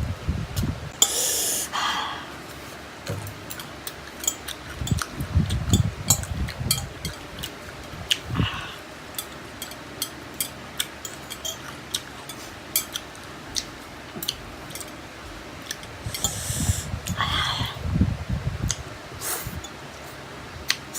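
Close-miked eating of spicy Korean fire noodles: many small wet mouth clicks and chewing sounds, with two louder noisy breaths drawn in, one about a second in and one near the end.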